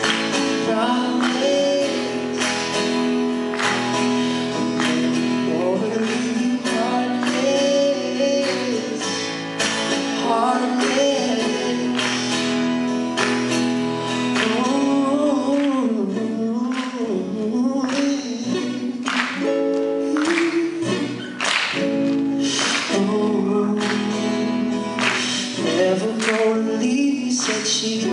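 A man singing to his own strummed acoustic guitar, live on a microphone.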